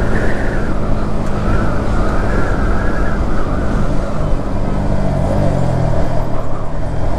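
Yamaha MT-15's single-cylinder engine running while the motorcycle is ridden at a steady speed, with wind rushing over the microphone. The engine note dips briefly about five seconds in.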